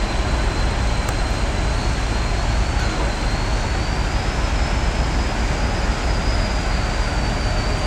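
Steady noise of heavy diesel demolition machinery running continuously, with a water truck spraying water onto the rubble, and no distinct crashes or impacts.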